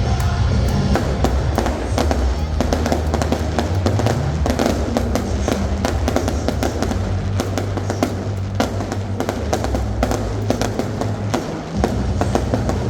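Fireworks bursting and crackling in quick, irregular succession, over music with a steady low bass.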